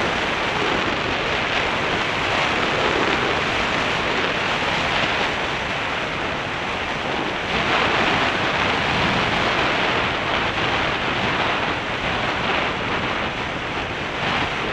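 Wind rushing over the microphone of a camera on a moving motorcycle, a steady loud rush that covers everything else.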